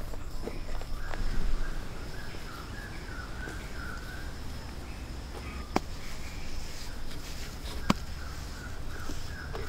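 Forest ambience: a steady high insect drone with wavering bird calls, under the soft scraping of hands working soil and render, and two sharp clicks in the second half.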